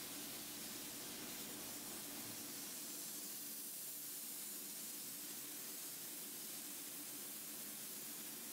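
Soda blaster gun spraying baking soda under compressed air: a steady hiss, with a low rumble underneath that drops away about two seconds in.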